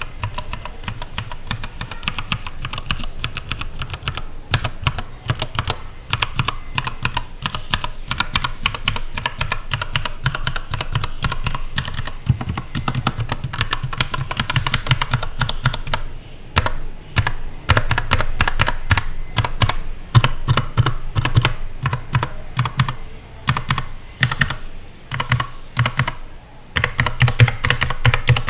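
Keychron K8 mechanical keyboard with brown switches and a plastic case being typed on: a fast, continuous clatter of keystrokes, with a few short pauses in the second half.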